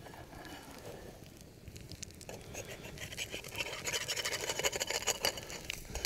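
Eggs frying in butter in a forged skillet over a campfire: a fine crackling sizzle that starts about two seconds in and grows louder and denser towards the end.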